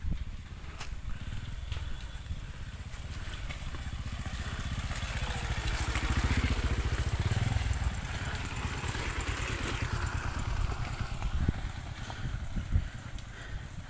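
Pit bike engine running as the dirt bike rides down a forest dirt trail, getting louder as it passes close by about six to seven seconds in, then fading as it rides away.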